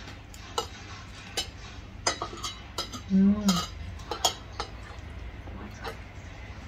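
Forks and spoons clicking and scraping against plates and takeaway containers during a meal, a scatter of short sharp clinks. About three seconds in, one eater gives a brief low hum, the loudest sound.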